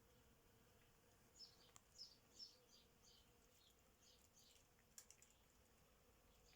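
Faint, scattered high chirps of small birds, coming in quick irregular clusters, most of them between about one and a half and five seconds in.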